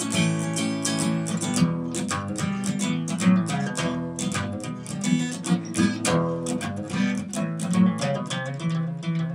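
Acoustic guitar playing a tune, a quick run of strummed and picked notes and chords.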